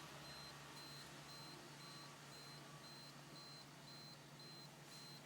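Faint, high electronic beeping from an aftermarket car security keypad in programming mode, short even beeps about twice a second.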